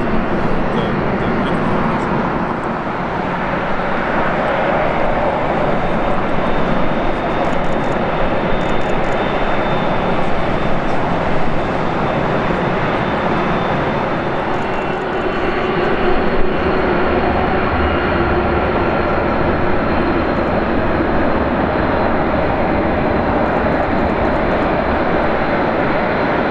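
Airbus A380's four Engine Alliance GP7270 turbofans at taxi power: a steady jet rumble and hiss with a faint high whine.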